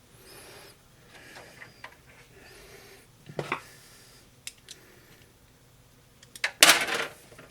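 Screwdriver working small metal screws on a PC case bracket: scraping and light clicks, with one louder, sharp clatter about six and a half seconds in.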